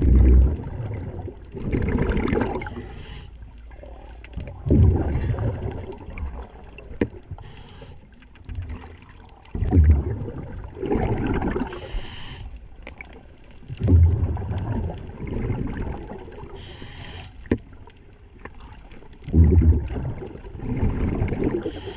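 A diver breathing underwater through a regulator: a deep burst of exhaled bubbles about every five seconds, each trailing off into a second or two of rushing, gurgling bubble noise, with quieter pauses between breaths.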